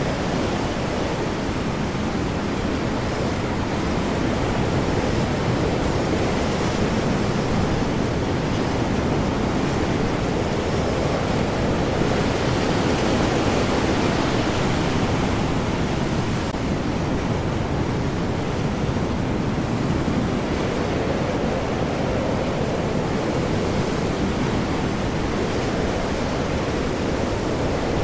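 Storm at sea: heavy ocean waves and high wind blending into a steady, dense rush that swells a little and eases without ever pausing.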